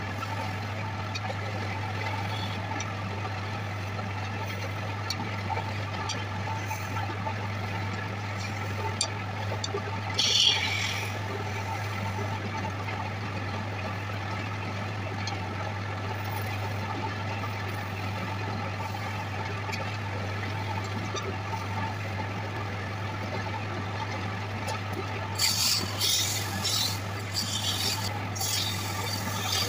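Wood lathe running with a steady low hum as the wooden goblet spins, with a hand rubbing against the turning wood and a brief scrape about a third of the way in. Near the end a hand-held turning tool cuts into the spinning wood in short, sharp scraping bursts.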